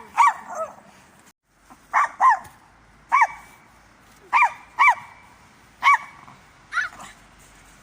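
Norwich terrier barking: about nine short, high-pitched barks, some in quick pairs, spaced irregularly.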